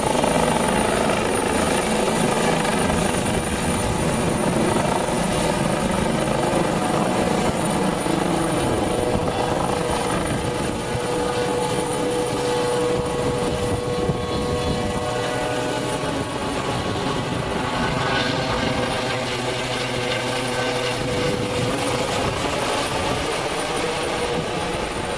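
Airbus H135 police helicopter with a fenestron tail rotor hovering close overhead, its rotor and turbines making a steady, loud noise with a thin high whine on top. It grows a little quieter near the end as it banks and climbs away.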